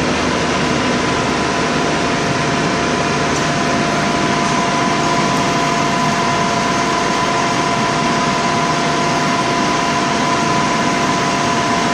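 Metal lathe running, with the tool taking a light facing cut of about three thousandths under power feed: a steady hiss of noise with two steady whining tones.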